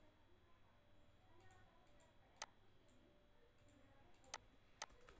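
Computer mouse clicks: three short, sharp clicks over faint room tone, one about halfway through and two close together near the end.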